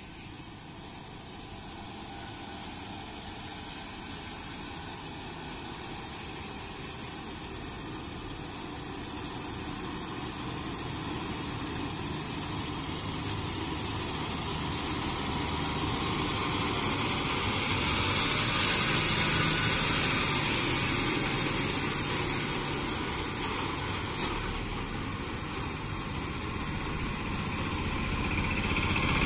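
Diesel engine of a heavily loaded goods truck working along a hill road, growing steadily louder as it approaches, peaking about two-thirds of the way through as it passes, then fading. A second, smaller engine comes up near the end.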